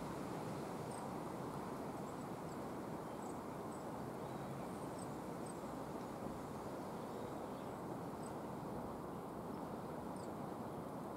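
Coal tit giving a strange call: short, very high, thin chirps at irregular intervals, roughly one a second, over a steady background rumble.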